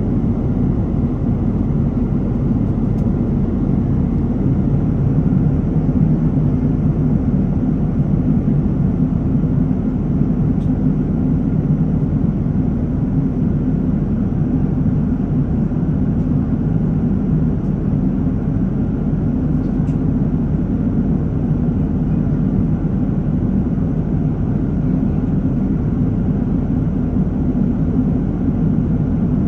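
Airplane cabin noise in flight, heard from a window seat: a steady, even low rumble of engines and rushing air, unchanging throughout.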